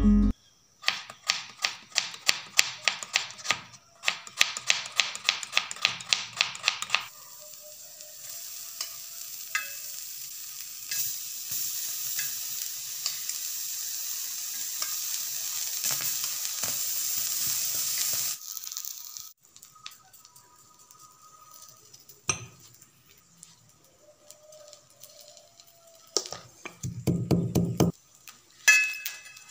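A kitchen knife chopping on a wooden cutting board in rapid, even strokes, then a steady sizzle of small dried fish roasting on a flat iron tawa, which cuts off suddenly. Near the end, a short run of heavy pounding with a steel pestle in a metal mortar.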